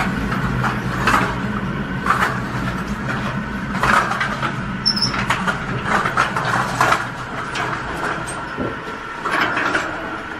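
Metal bakery rack trolley rattling and clanking as it is wheeled into a rack oven, with repeated short knocks every second or so over a steady hum.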